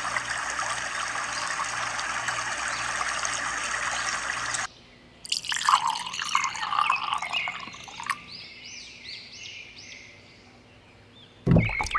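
Water trickling steadily, which stops abruptly a little under halfway through. It is followed by a few seconds of uneven splashing and dripping that dies away, and a louder sound begins right at the end.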